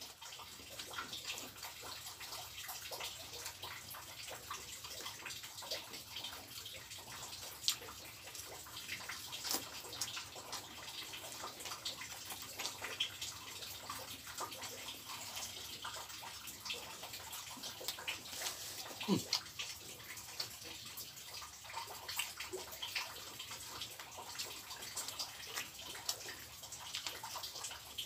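Close-up wet eating sounds: a man chewing and lip-smacking as he eats rice and fried catfish in sambal with his fingers, with many small scattered clicks and squelches.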